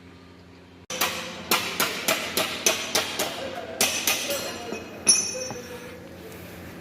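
Hammer blows on car body sheet metal during panel beating, struck quickly at about three to four a second with a metallic ring. The blows start about a second in, and a last, loudest strike at about five seconds rings on as it fades.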